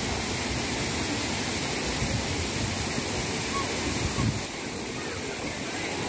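Waterfall and stream water rushing over rocks: a steady, even rush of falling and tumbling water. It drops slightly in level a little after four seconds in.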